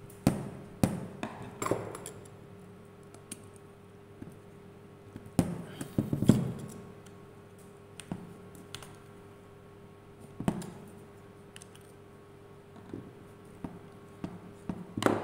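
Scattered clicks and knocks of a screwdriver and an angle grinder being picked up and set down on a work surface, over a faint steady hum.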